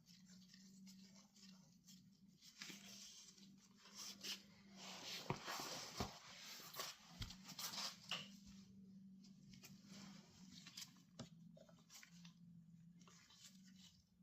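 Faint handling sounds as a motorcycle chain riveting tool and a master link's side plate are set up by hand: soft rustling and scraping that grows in the middle, with a few light clicks, over a low steady hum.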